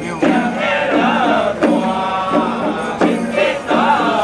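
Music with chanting, in short melodic phrases that repeat about every second and a half.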